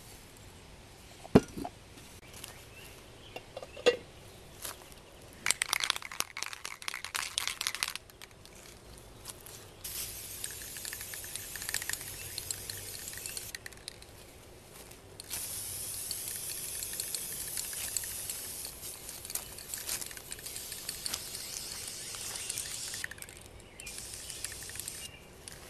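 Aerosol spray paint can being shaken, its mixing ball rattling for a couple of seconds. The can is then sprayed in long hissing bursts: one of about three seconds, then a longer one of about eight seconds, with shorter bursts near the end.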